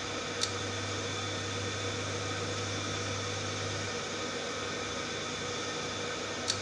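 Steady mechanical hum with an even fan-like hiss from a running kitchen fan. Two light clicks sound over it, one about half a second in and one near the end.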